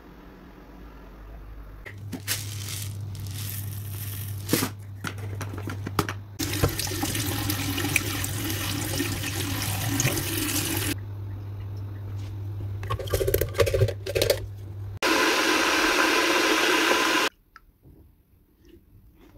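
Kitchen tap running into a stainless steel sink while coriander seeds are washed under it, with knocks and clatter of handling before and after. Near the end comes a few seconds of louder steady rushing noise that cuts off suddenly.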